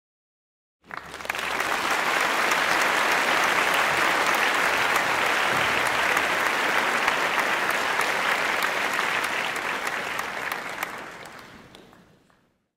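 Applause from a crowd, many hands clapping in a dense steady patter that starts suddenly about a second in and fades out near the end.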